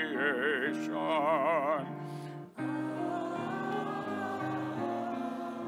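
A solo voice sings the closing word of a prayer, "creation", with wide vibrato over instrumental accompaniment. After a short break about two and a half seconds in, voices and accompaniment begin a slow sung "Amen" with long held notes.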